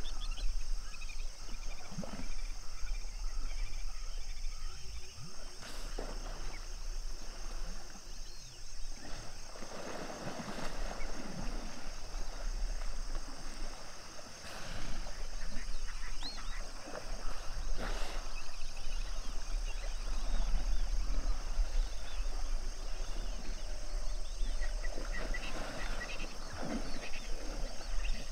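Hippos of a pod in the water calling several times with deep grunts and honks, over a steady high-pitched background chorus.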